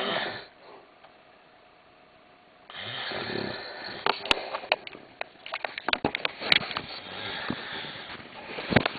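A man snoring: a short snort at the very start, then after a quiet pause a long, crackling snore of several seconds full of sharp clicks, ending in a loud snort near the end.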